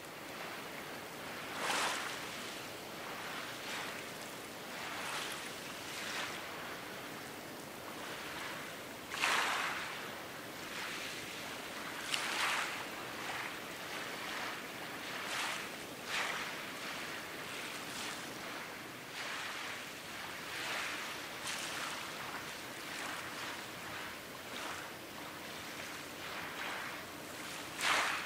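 Small waves lapping and washing against the shore in irregular surges every second or two, the strongest a couple of times in the middle and one near the end, over a faint steady low hum.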